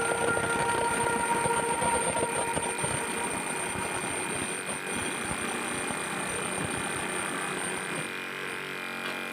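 Jackhammer running in rapid, continuous blows, thinning out about eight seconds in.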